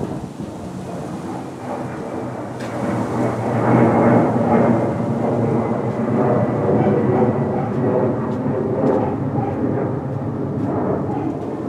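Wind buffeting the camera microphone: a loud, uneven rumble that swells about four seconds in.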